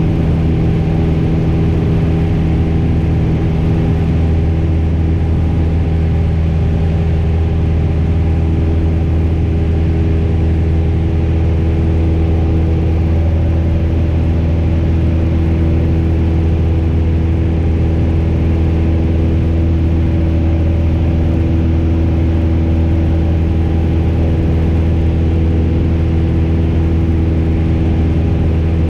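Piper PA-28 light aircraft's piston engine and propeller heard inside the cabin, a steady, even drone with a deep hum. The aircraft is climbing on engine power after takeoff.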